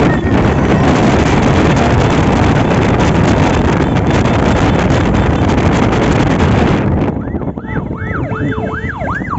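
Heavy wind noise rumbling on the microphone, cutting off suddenly about seven seconds in. Then a vehicle siren starts, on a fast yelp that rises and falls a little more than twice a second.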